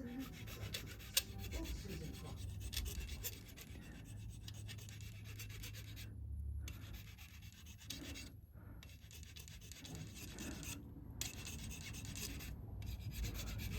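Faint rubbing and scraping with a few small clicks as hands work a plastic knob onto its shaft.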